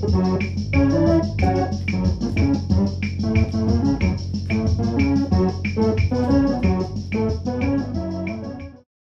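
Background music: an instrumental with an organ-like keyboard over a bass line and a steady beat, cutting off abruptly near the end.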